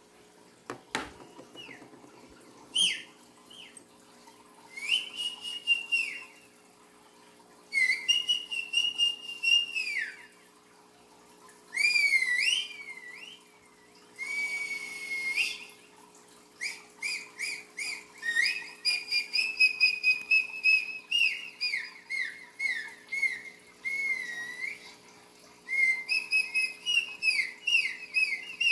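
Whistling: a string of short phrases of sliding, trilling and warbling notes with brief pauses between them, coming thicker in the second half. A single knock about a second in.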